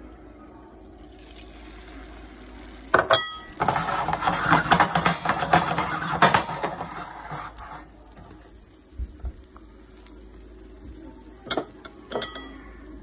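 Two sharp metal clinks of a utensil, then an egg and spinach mixture sizzles and crackles in hot oil in a nonstick frying pan for about four seconds before dying down. A few more light metallic clinks come near the end.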